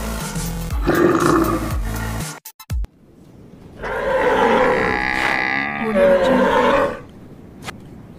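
Stock animal sound effects: a tiger roaring and growling for about two seconds, then after a short break a long, wavering animal bellow lasting about three seconds.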